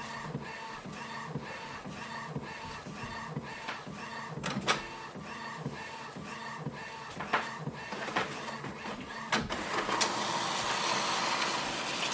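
Epson WorkForce WF-7310 inkjet printer printing a nozzle check sheet: a run of evenly repeated mechanical ticks and pulses as the print head works. About nine seconds in, this gives way to a louder, steady mechanical noise.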